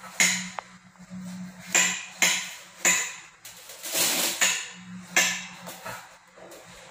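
White plastic pipe fitting being handled and twisted by hand, giving six or seven short scraping, rubbing strokes at uneven intervals, each fading quickly, over a faint steady low hum.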